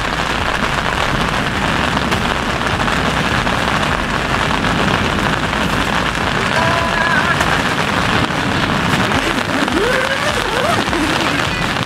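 Loud, steady rain falling on a polyester tent fly in a monsoon storm, heard from under the tent.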